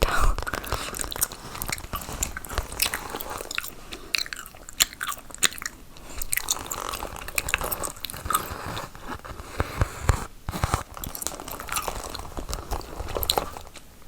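Gum chewing close to the microphone: an irregular run of sharp clicks and smacks.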